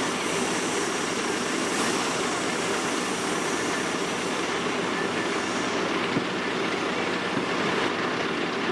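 Steady rushing noise of a fire hose's water spray, the shower a fire crew sets up.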